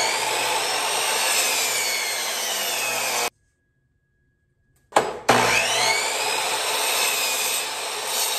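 Electric compound miter saw crosscutting a black walnut board, twice. Each cut begins with the motor's high whine dropping in pitch as the blade bites into the hardwood. The first cut stops abruptly about three seconds in, and the second starts with a click about five seconds in.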